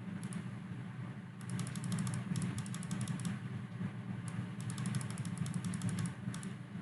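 Typing on a computer keyboard in two quick runs of keystrokes over a steady low hum.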